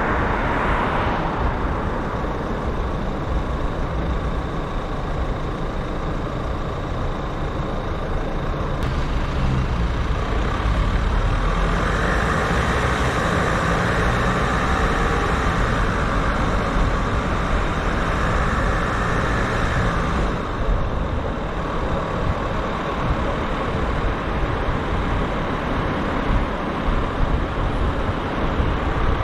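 City street traffic heard from a moving car: a steady rumble of tyres and engines, with a louder stretch of higher road noise in the middle, as of a vehicle passing close by.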